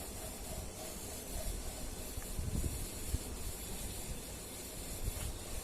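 Steady hiss with a low rumble beneath it, with no distinct calls or knocks standing out.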